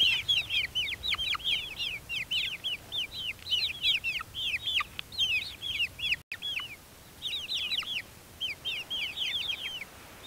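A flock of young Barnevelder chicks peeping continuously in many short, high, falling chirps that overlap one another. There is a brief break about six seconds in.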